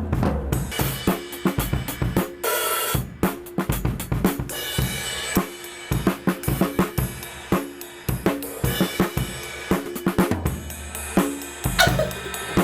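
Drum kit being played in quick, busy patterns of snare, bass drum and cymbal hits, with some held pitched notes from other instruments underneath.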